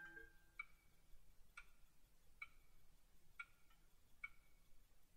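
Grandfather clock ticking, a soft, steady tick-tock about once a second. The ringing of a chime strike dies away in the first half-second.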